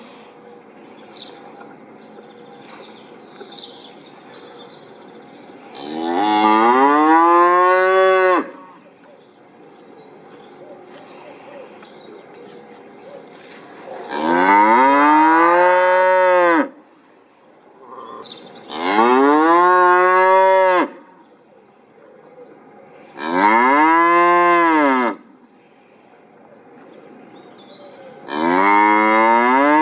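A cow mooing: five long moos, each about two seconds, rising and then falling in pitch, with pauses of a few seconds between them; the last is still going at the end.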